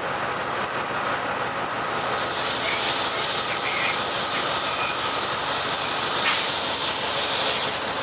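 Amtrak passenger train approaching: a steady noise of the diesel locomotive and wheels on the rails that grows a little brighter a couple of seconds in, with one short sharp knock near the end.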